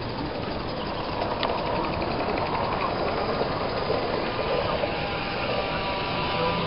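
Small live-steam garden railway locomotive running: a steady hiss, with a fast regular ticking beat for about a second near the middle. Several steady droning tones join in near the end.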